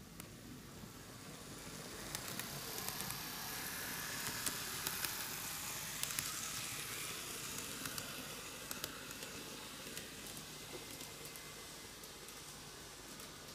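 N gauge model diesel railcar train (Microace Meitetsu KiHa 8000 series) running past on curved track: a hissing whir of motor and wheels on rail that grows louder to a peak about halfway through and then fades as the train moves away, with scattered light clicks.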